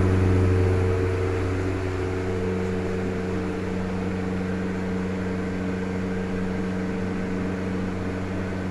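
1990s Crompton Greaves Trans Air 12-inch (300 mm) four-blade exhaust fan running: a steady electric motor hum under the rush of moving air, a little louder in the first second or two.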